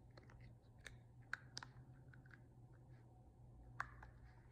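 Near silence with a handful of faint, scattered clicks of plastic breast-pump parts being handled and pushed together, over a low steady hum.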